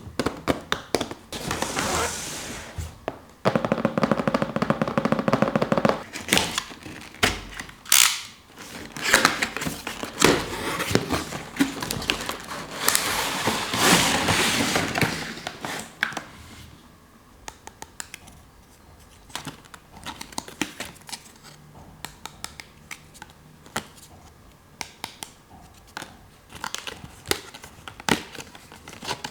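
Small plastic toy pieces of a Hello Kitty toy refrigerator set being handled during unboxing: a run of sharp clicks and taps, with stretches of rustling in the first half, then fewer, quieter clicks.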